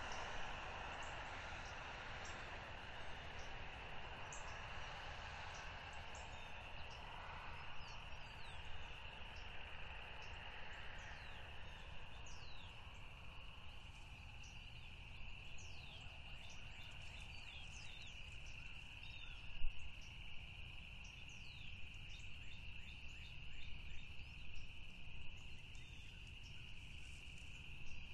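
A steady high-pitched outdoor chorus of calling animals, with many short falling chirps above it and a low rumble beneath. A single sharp click about two-thirds of the way through.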